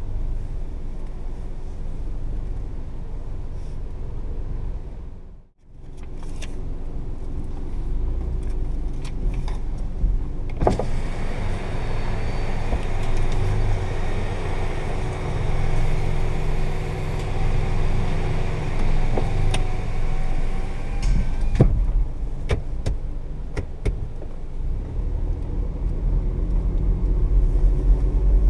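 Cabin sound of a 2012 Kia Picanto 1.0 automatic, its three-cylinder engine running at low speed. For about ten seconds in the middle the driver's window is open and outside noise comes in, with a click as it starts and another as it ends. Near the end the engine sound grows louder as the car pulls away.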